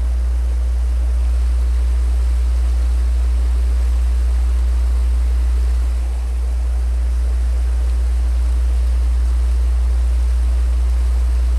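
Steady low rumble with an even hiss: wind buffeting the camera microphone over rushing river riffles, easing briefly about six seconds in.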